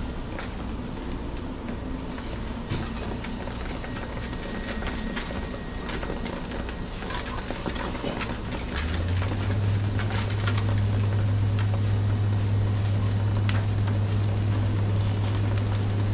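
Skewered eel fillets sizzling on an electric grill, with scattered crackles from the fat over a steady low rumble. About nine seconds in, a louder steady low hum comes on and holds.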